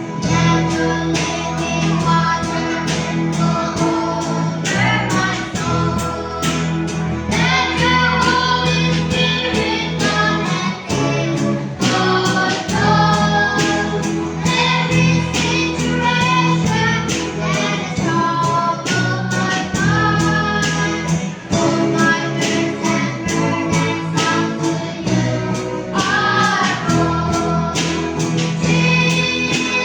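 Music: a song with singing voices over guitar and a steady bass line.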